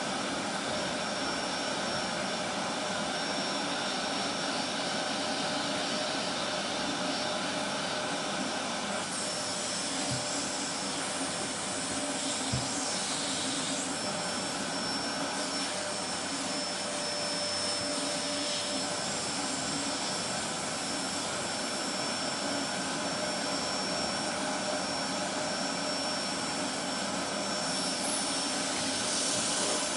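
Vacuum cleaner motor running steadily, a dense even rush with a thin high whistle that comes in about a third of the way through.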